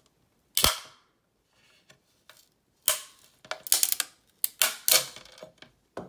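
3D-printed frame snapping loose from a glass print bed as a knife blade pries under it: sharp cracks and pops as the stuck first layer breaks free. One loud snap comes about half a second in, then a quick cluster of about eight more in the second half.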